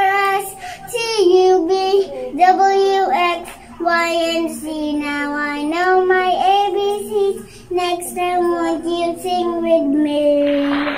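A young girl singing a melody into a toy microphone: long held notes in phrases with short breaks between them. Near the end the singing gives way to a steady rushing noise.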